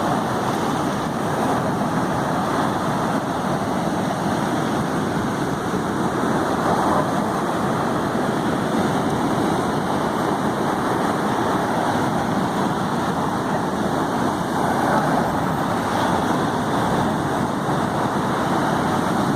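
Ocean surf: a steady, unbroken wash of breaking waves, rough and churning.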